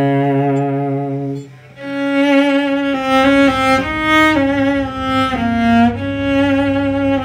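Cello playing a slow, soothing melody of long bowed notes over a held low note. The notes break off briefly about a second and a half in before the melody resumes.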